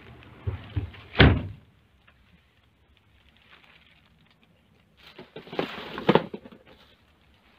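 The cab door of a Scania P410 truck shutting with a deep thump about a second in, after a few lighter knocks. Near the end come rustling and knocks of someone shifting about in the cab.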